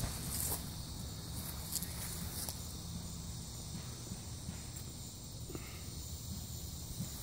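Outdoor summer ambience: a steady high-pitched chorus of insects, with low wind rumble on the microphone and a few soft clicks.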